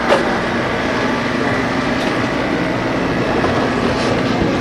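An engine running steadily, with a short click just after the start.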